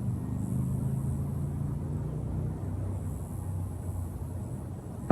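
Steady low outdoor rumble, then a single sharp thud at the very end as a soccer ball is kicked.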